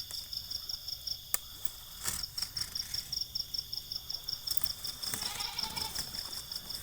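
Insect chirping in a fast, even pulse, about five pulses a second, over a steady high-pitched tone, with a couple of sharp clicks and a short wavering call about five seconds in.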